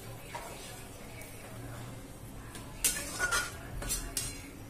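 Perforated metal skimmer spoon stirring a watery sauce in a wok, clinking and scraping against the pan several times in the second half.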